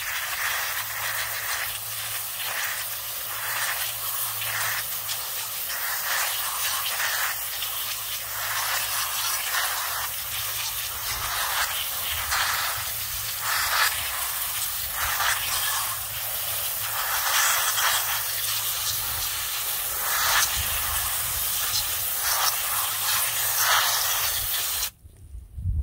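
Water hissing from a pistol-grip garden hose spray nozzle on a shower setting, spattering onto the leaves and soil of a potted plant, cutting off suddenly near the end.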